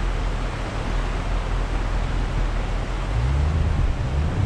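Steady wind noise rushing on the microphone over a low-running vehicle engine. About three seconds in, a low engine note rises and falls.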